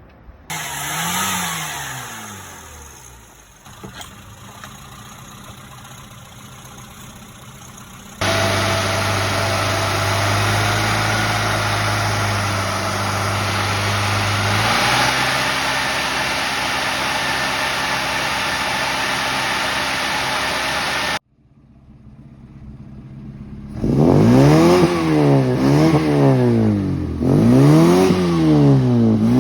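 Classic Mini's 998 A-series engine with an HIF38 carburettor being worked during tuning. It revs up and back down once, then idles lower, then is held at steady high revs for a long stretch. After a sudden cut, the throttle is blipped several times, each rev rising and falling quickly.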